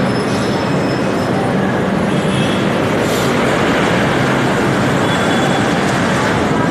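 Electric light-rail train running along the platform: a steady rolling rumble of wheels on rails, with faint high squealing tones from the wheels.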